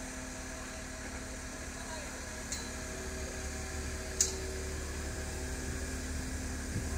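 A crane's engine running steadily under load as it holds and moves a suspended prefabricated building module; its low hum grows a little about three seconds in. A sharp click about four seconds in.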